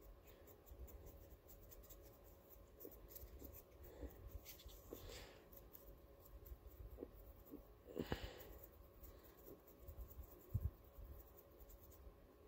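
Faint scratching and dabbing of a small paintbrush working wet acrylic paint over a polymer-clay sculpture, with soft handling clicks; the loudest is a brief rustle about eight seconds in.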